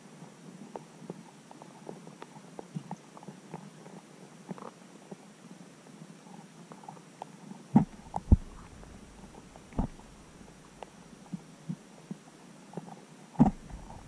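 Muffled underwater sound picked up through a submerged camera's housing as rudd feed on a lump of oilcake bait: a steady scatter of small clicks and taps, with louder low thumps, two close together just past the middle, another a couple of seconds later and one near the end.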